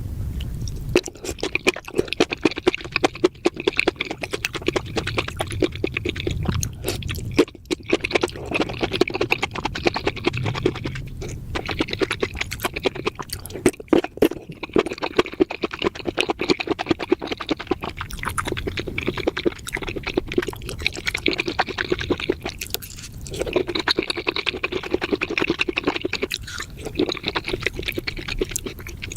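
Close-miked wet chewing of spicy mushrooms: a dense run of quick moist smacks and squelches, with brief pauses between mouthfuls.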